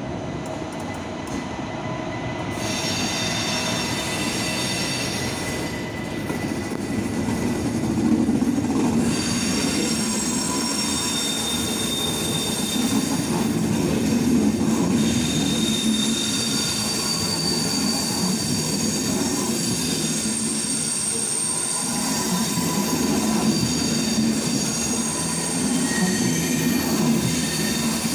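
DB Class 401 ICE 1 high-speed trainset rolling past on a station track, its wheels squealing in several high tones that come and go over a low, pulsing rumble. It grows louder over the first several seconds as the train draws level.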